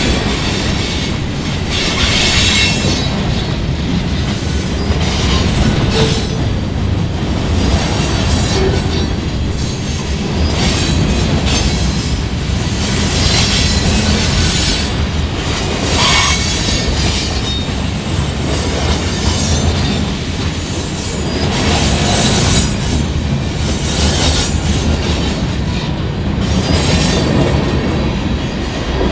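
CN freight train rolling past: a steady rumble of wheels on rail, with scattered clanks and clatter from the cars.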